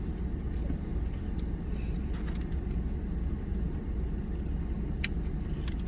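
A person chewing crispy fried chicken wings, with a few faint crunches over a steady low rumble.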